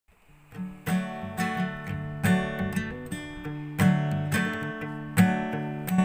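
Background music: acoustic guitar strumming chords at a steady pace. It comes in about half a second in, after a moment of silence.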